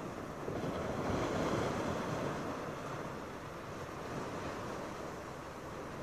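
Surf washing onto a sandy beach: a steady rush of waves, with one surge swelling about half a second in and easing off after a couple of seconds, and some wind on the microphone.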